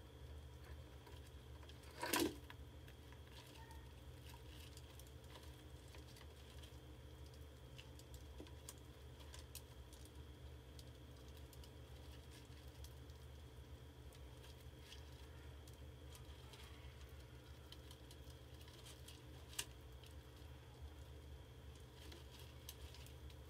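A rat dropping into a plastic water-jug mouse trap with one short loud thump about two seconds in. Then comes a faint patter of small scratches and ticks from the trapped rats moving against the plastic, over a steady low hum.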